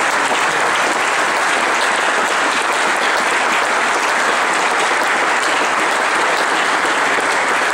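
Large crowd applauding, a steady, loud clapping that holds without a break.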